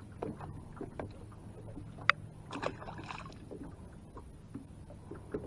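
Light scattered clicks and knocks from handling a just-caught crappie and tackle in a boat, one sharper click about two seconds in, over a faint steady low hum.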